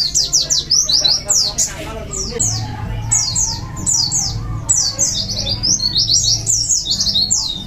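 Pleci (white-eyes) singing: fast runs of short, high notes sweeping downward, coming in several dense bursts.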